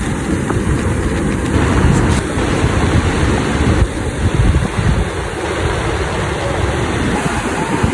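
Sea surf breaking and washing up a sandy beach, with wind rumbling on the microphone.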